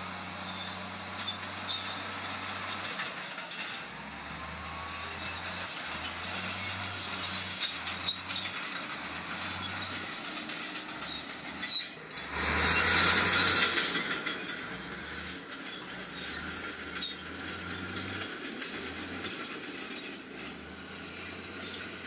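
Bulldozer working, its engine running with steady clanking and squeaking from its steel tracks. About halfway through, a loud burst of noise lasts about two seconds.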